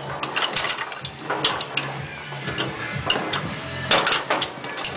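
Foosball game on a metal table: plastic players strike the ball and the steel rods clack and knock against the frame as they are slid and spun, a rapid, irregular run of sharp knocks, with a low steady hum underneath.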